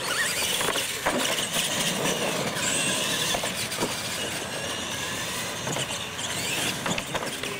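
Radio-controlled monster trucks racing on concrete: motors and gears whining, rising and falling in pitch as the drivers work the throttle, over tyre noise, with a few sharp knocks as the trucks hit and land off the ramps.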